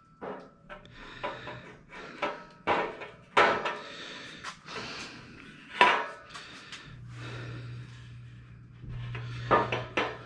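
Aluminum extrusion rails and cross pieces knocking and scraping against each other as a cross piece is worked into place on a table frame: a series of sharp knocks with rubbing between them. A low steady hum comes in about two-thirds of the way through.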